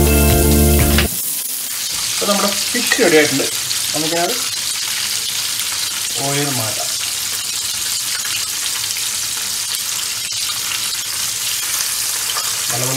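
Battered fish pieces deep-frying in hot oil in a small pan, a steady sizzle, as tongs turn and lift them. The batter coating is fried crisp and the fish is nearly done.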